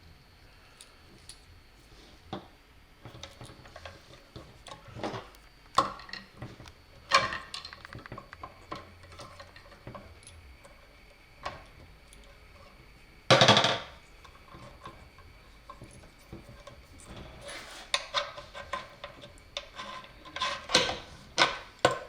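Scattered clicks and light knocks of hand tools and small parts being handled during wiring, with one louder clatter about 13 seconds in and a quicker run of clicks near the end.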